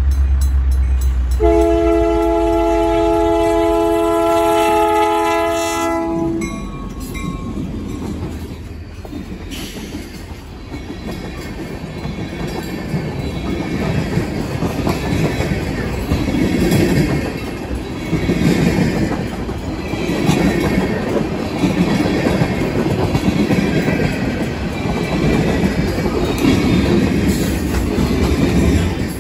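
Canadian National freight train at a grade crossing. The diesel locomotive blows one long horn blast over its engine rumble, and the horn cuts off about six seconds in. After that, loaded tank cars and gondolas roll past with a steady clickety-clack, the wheel sets knocking over the crossing about every two seconds.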